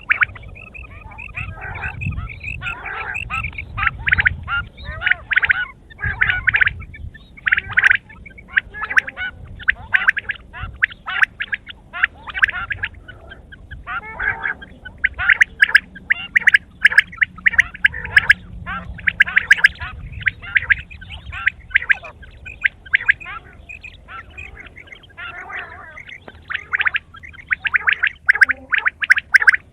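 Quail calling in quick runs of short, sharp notes, in bursts with brief pauses between them, busiest in the second half.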